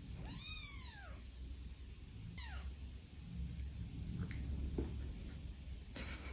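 A kitten mewing: one long high-pitched meow that rises and falls, then a shorter falling mew about two seconds in and a couple of faint brief peeps later. A burst of noise starts near the end.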